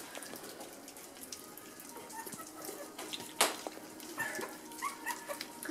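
Puppies lapping and slurping milk porridge from a shared metal feeding dish: many small wet smacks and licks, with one sharper click about three and a half seconds in and a few faint squeaks near the end.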